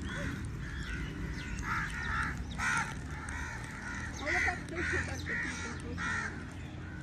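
Crows cawing: a series of short, harsh caws about half a second apart.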